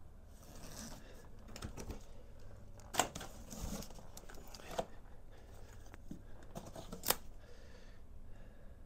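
Cardboard shipping box and its packing being handled: rustling and scraping, with sharp clicks, the loudest about three seconds in and again about seven seconds in.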